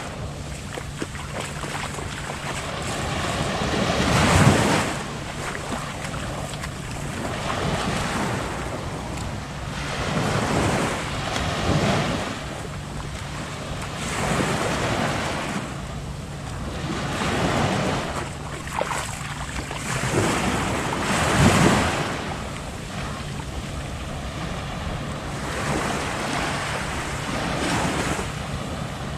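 Waves breaking and washing up on a sandy beach, the surf swelling and fading every few seconds, with wind buffeting the microphone.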